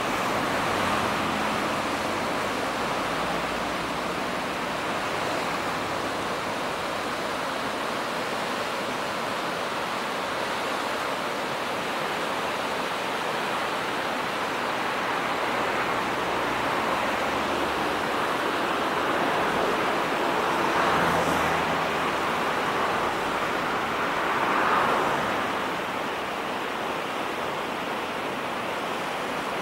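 Heavy typhoon rain, a steady hiss that swells louder twice in the later part.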